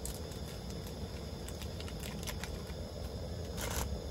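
Gas camping stove burning steadily under a square aluminium pot of steaming water, with light packet crinkles. A short rustle comes near the end as a block of instant ramen noodles goes into the pot.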